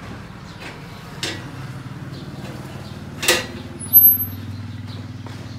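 A steady low motor hum like a vehicle running, with two sharp clicks about one and three seconds in. About four seconds in comes a brief high electronic ding, the sound effect of a YouTube subscribe-and-bell animation, which is the loudest thing heard.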